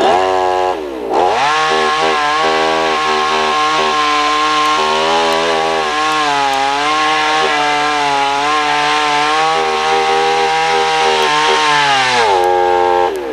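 Two-stroke chainsaw running at high revs, cutting through wood. The engine speed dips briefly about a second in, then holds a high, wavering pitch until it drops off near the end.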